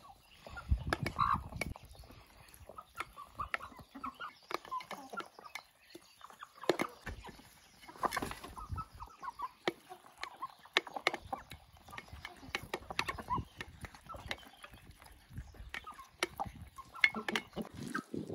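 Hens clucking softly while they peck worms from an enamel bowl, their beaks striking it in many sharp, irregular clicks.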